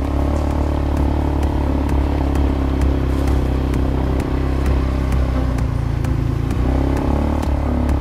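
Quad bike (ATV) engine running at a steady pace while riding, with frequent light knocks and rattles.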